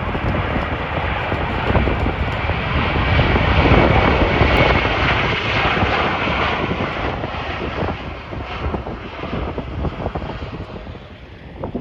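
Jet airliner passing, its engine noise swelling to a peak about four seconds in with a faint high whine, then fading away. Wind buffets the microphone underneath.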